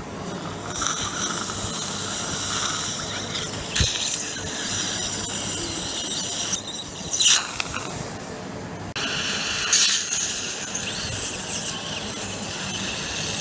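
Surgical suction tip drawing air, blood and saliva from the mouth after the ridge has been sutured: a steady high hiss with squealing. It drops off for a couple of seconds past the middle, then comes back abruptly.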